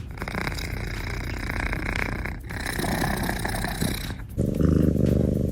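A sleeping cat snoring: two long rasping breaths with a brief break between them. About four seconds in, the sound cuts abruptly to a deeper buzzing drone.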